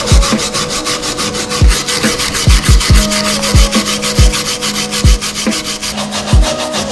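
Rapid, even abrasive strokes, about six a second, of hand-scrubbing rust off the old jack's metal. Low thumps and steady tones sound underneath.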